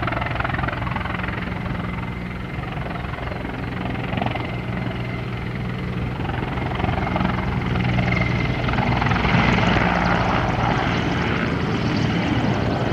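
Mil Mi-24 helicopter's rotor and twin turboshaft engines in flight, a steady low rotor beat under a broad turbine rush, growing louder from about six seconds in and loudest around ten seconds as it passes closer.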